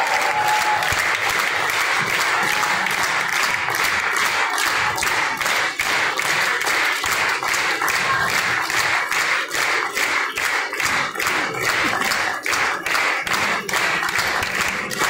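Large audience applauding steadily; in the second half the claps fall into a regular rhythm.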